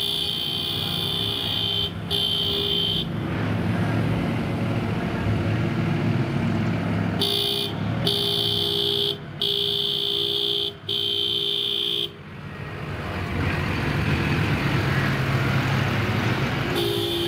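Vehicle horns honking in long, steady blasts: two near the start, four in a row around the middle and another near the end. Between them is the low rumble of engines rolling past, loudest shortly before the end.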